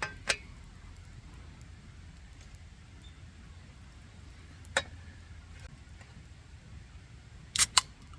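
A few short, sharp knocks: two near the start, one a little past the middle and a quick pair near the end, over a steady low rumble.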